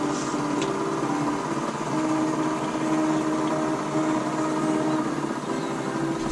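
A distant engine drones steadily, its pitch shifting slightly from moment to moment.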